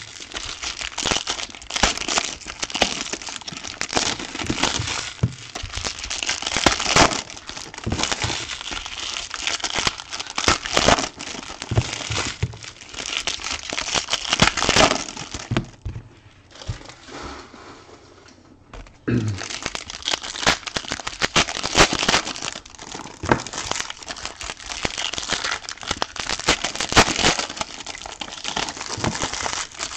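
Foil trading card pack wrappers being torn open and crinkled by hand, a steady crackling rustle full of sharp crackles, with a brief quieter lull a little past halfway.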